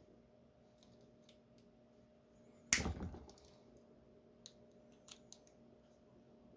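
Small metal tools clicking against a lock while working its retaining clip: one sharp, loud metallic snap about three seconds in, with a short ring-out, and a few faint ticks around it.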